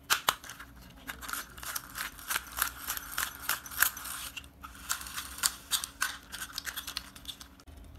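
Red plastic toy racing car being handled and turned over in the hands: a fairly quiet, irregular run of small plastic clicks and rattles from its body and wheels.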